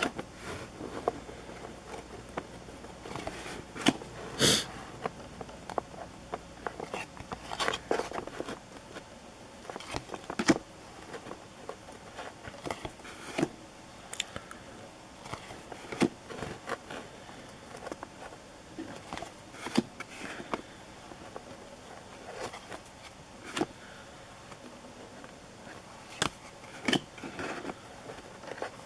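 Cardboard trading cards handled one by one: irregular light clicks, flicks and rustles as each card is slid off a stack.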